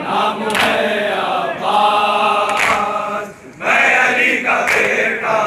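Men chanting a noha, a Muharram lament, in chorus, with a sharp slap of hands on chests about every two seconds keeping the beat of the matam.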